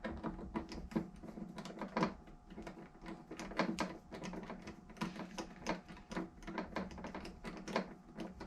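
Irregular small metallic clicks and taps as screws are driven by hand into the fuel meter cover of a Rochester throttle body.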